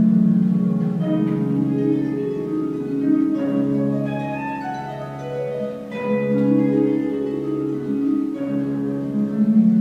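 Concert pedal harp played solo: plucked chords ringing in the low and middle register with higher notes above, fading slightly and swelling again about six seconds in.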